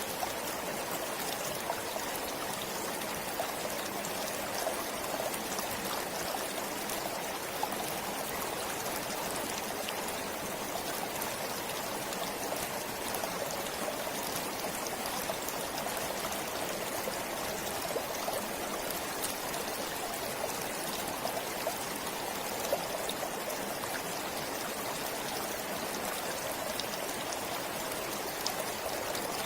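A forest stream flowing steadily, with a constant rush of water and small splashes and trickles scattered through it.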